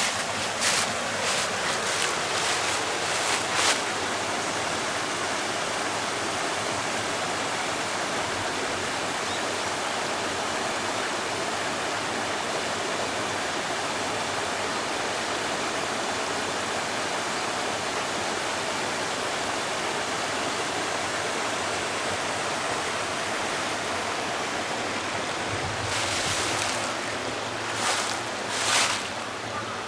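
Rushing water of the Shojin River, a steady even rush. Several short sharp clicks or scuffs sound over it in the first few seconds and again near the end.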